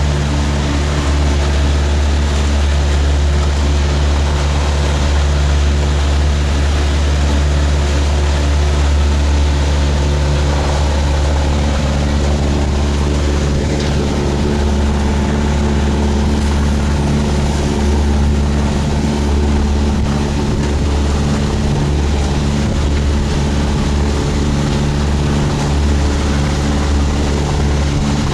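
A boat's diesel engine running steadily while under way, a constant low drone with an even hum of overtones and no change in speed.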